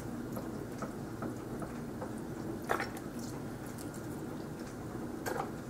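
Thin vinegar-and-spice marinade dribbling and dripping from a shaken bottle onto chicken and vegetable kabobs in a glass baking dish, faint, with a few soft ticks.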